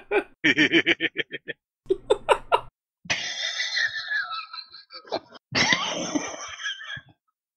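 Laughter in separate bursts: a quick, rhythmic 'ha-ha-ha' laugh for the first couple of seconds. After a short break come two longer, rougher laughs.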